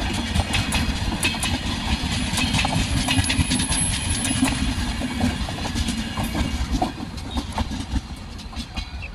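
Steel wheels of a passing Indian Railways express's LHB coaches clattering and clicking rapidly over the rail joints, over a heavy low rumble. The sound falls away near the end as the last coach goes by.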